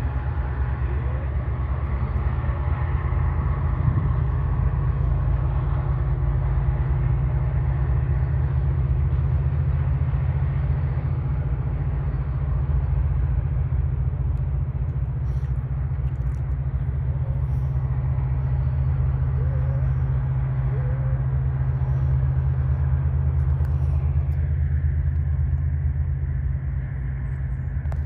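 Deep, steady drone of a river towboat's diesel engines as it pushes a string of loaded barges past, an even low rumble that does not rise or fall.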